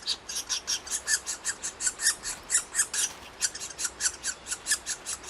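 Okinawa woodpecker chicks begging for food at the nest: a fast, steady run of short, high, harsh calls, about six a second.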